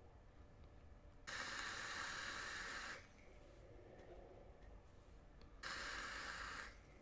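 Two long hissing drags on an electronic cigarette's rebuildable atomizer, fitted with a freshly built 0.34-ohm, 22-gauge single coil: air rushing through the atomizer as the coil fires. The first drag lasts nearly two seconds, and a shorter one comes near the end.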